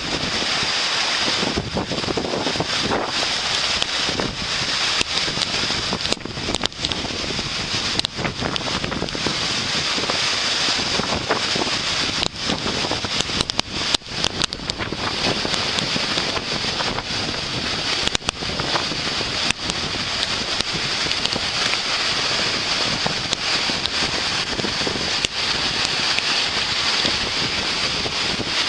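Waterfall: a steady, loud rush of falling water, with brief irregular dips and knocks of wind buffeting the microphone.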